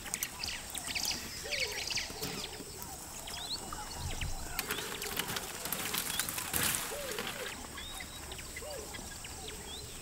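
Wild birds chirping and calling, many short rising and falling chirps overlapping, over a faint outdoor background with scattered light clicks.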